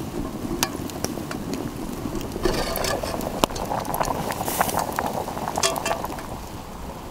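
Metal lid of a camp cooking pot clinking as it is lifted off with a stick over a campfire, a cluster of clinks about two and a half seconds in and a few more later. Scattered sharp crackles and ticks from the fire over a steady hiss.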